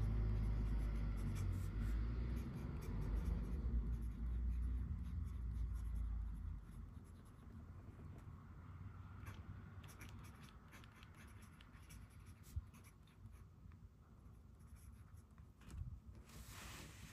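Momento Zero Grande fountain pen with a #8 nib writing on Filofax refill paper: soft nib scratches and strokes, broken by short pauses. A low rumble underneath, louder than the writing, fades out about six seconds in.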